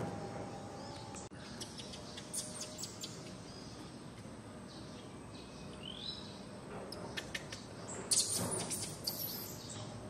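Small birds chirping: short high chirps scattered throughout, a rising call about six seconds in, and a quick flurry of chirps around eight seconds in, over a steady outdoor background hiss.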